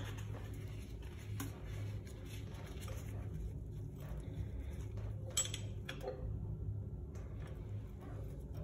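Faint rustles and small clicks of gloved hands handling a tube of silicone grease and the flush valve's metal parts, with a sharper click about five seconds in, over a steady low hum.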